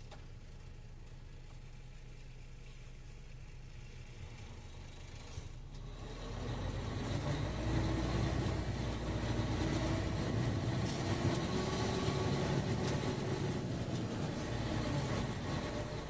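Heavy truck's diesel engine idling low, then about six seconds in it gets louder and its note climbs as the truck pulls slowly forward under power.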